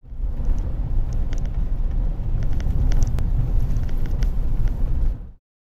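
Road and engine rumble heard inside a Suzuki Hustler kei car driving at night, a steady low drone with faint scattered ticks; it cuts in sharply and stops suddenly near the end.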